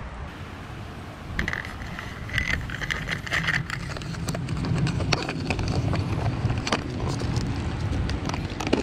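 Steady street traffic rumble. From about a second and a half in come a run of sharp clicks and scrapes: cat food being scraped out of a small metal tin with a utensil.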